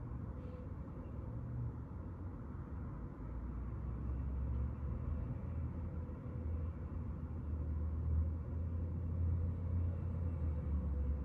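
Steady low rumble and hiss of room background noise with a faint steady hum, growing a little louder about three seconds in.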